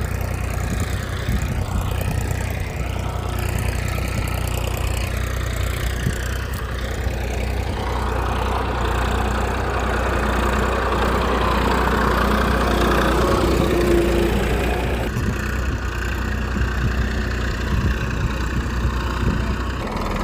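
A small engine or motor running steadily with a low, even hum. The sound changes abruptly about fifteen seconds in.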